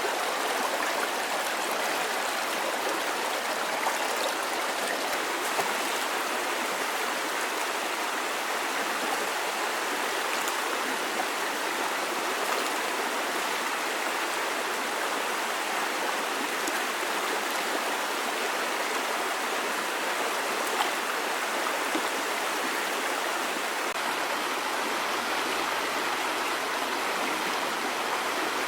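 Steady rush of flowing water, with a few faint ticks here and there.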